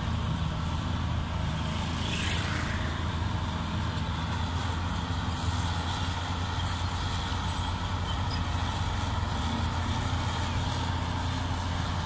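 Steady low diesel drone of a Caterpillar D6R bulldozer pushing soil, with a brief hiss about two seconds in.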